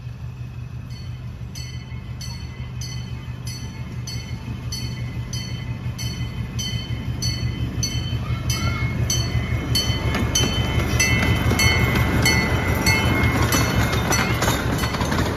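C.P. Huntington miniature locomotive approaching and passing, its engine a low steady hum that grows louder. Its bell rings in a regular clang about three times a second.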